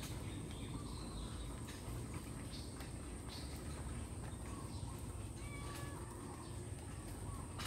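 Faint outdoor ambience: a low rumble with scattered light clicks, a thin steady high tone, and a few faint bird chirps.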